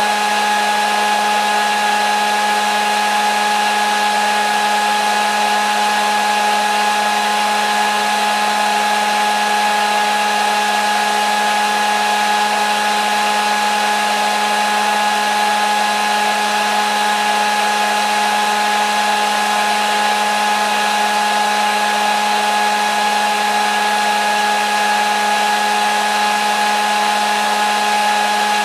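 Hair dryer running steadily: an even rush of air with a low motor hum and a high whine, unchanging throughout.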